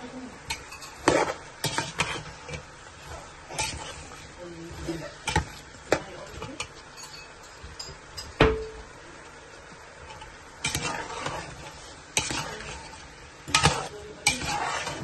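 Metal spoon stirring chopped onions and whole spices in a large aluminium pot, knocking and scraping against the pot at irregular intervals, over a low sizzle of the onions frying in oil.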